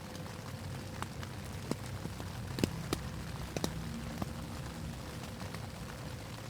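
Raindrops tapping irregularly on a tent's fabric, heard from inside, as scattered sharp ticks over a steady low rumble, with a faint steady hum underneath.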